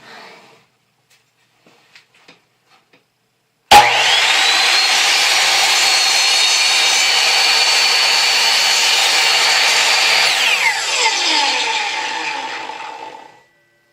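Ryobi 10-inch sliding compound miter saw switched on with a sudden start about a few seconds in. It runs at a steady high whine through a compound miter cut in a wooden board for about six seconds. When it is switched off, the whine falls in pitch as the blade spins down.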